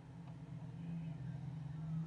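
A steady low hum that swells slightly about a second in and again near the end.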